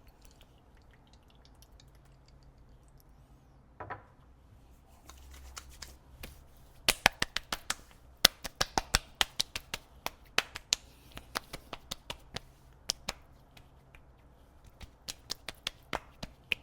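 Hands patting aftershave onto freshly shaved skin: an irregular run of sharp slaps, several a second, starting about seven seconds in.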